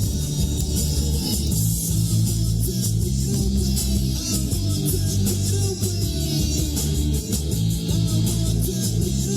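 Guitar-driven rock music with bass playing over a car's sound system, heard inside the cabin.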